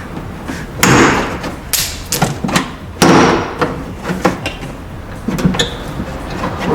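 Plastic interior trim panel being pried off a car with a trim removal tool: two loud pops as its retaining clips let go, about a second in and three seconds in, with smaller clicks and knocks between.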